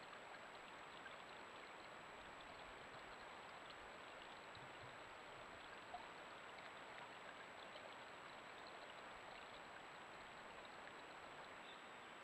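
Faint, steady rush of water trickling through a beaver dam, with scattered faint ticks, a single small click about six seconds in, and a constant thin high electronic whine from the trail camera.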